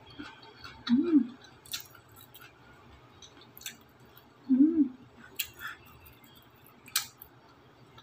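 A person chewing a mouthful of rice and stir-fried vegetables, with a few sharp wet mouth clicks and smacks. Twice, about a second in and again midway, there is a short closed-mouth hum, "mm", rising and falling in pitch.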